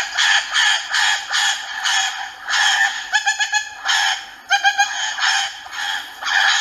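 Parrot squawking over and over, harsh calls about two a second, with quick chattering notes around the middle.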